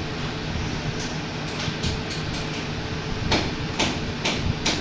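A series of sharp knocks over a steady low hum. The knocks are scattered at first and come about two a second in the last couple of seconds.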